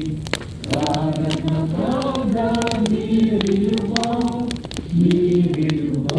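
A choir singing a slow song in harmony, holding long notes phrase by phrase, over the crackle and pops of a burning wood bonfire.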